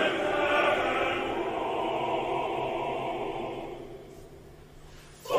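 A large mixed choir of men and women singing a held chord that fades away about four seconds in, leaving a brief hush. Right at the end the audience bursts into loud cheering.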